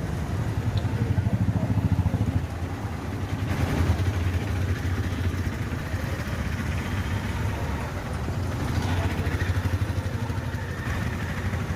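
A small engine running steadily with a low, rapid pulse, amid street noise. It swells louder twice, about a second in and again near the end.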